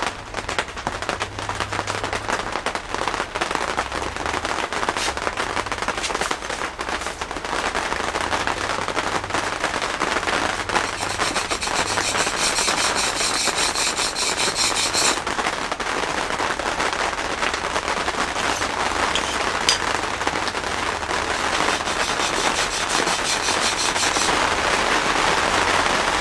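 Steel wood chisel being rubbed back and forth on an oiled two-grit sharpening stone, a continuous gritty scraping.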